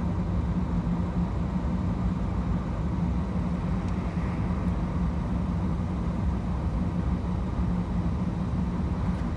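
Steady low hum of a car idling in stopped traffic, heard from inside the cabin.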